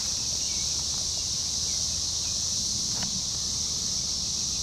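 Chorus of cicadas singing together: a steady, unbroken high-pitched drone.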